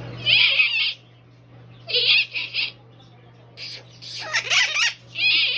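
A parrot calling close by: four or five loud, high calls, each under a second, with short pauses between them.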